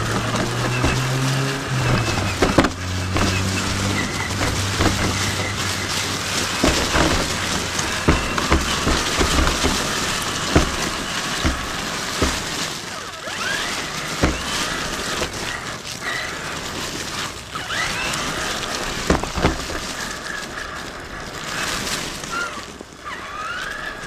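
Traxxas Summit electric RC truck crawling over rocks and dry leaves: the motor and gearbox whine, rising and falling with the throttle, over the crunch of tyres on gravel and repeated sharp knocks as the truck hits rocks.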